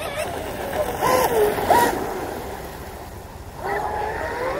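The brushless electric motor of a Pro Boat UL-19 RC hydroplane (Oxidean 4082 2200KV) whines as the boat runs across the water, with hissing spray. The pitch rises and falls with the throttle: it climbs twice briefly about a second in, sags around the middle, and rises again near the end.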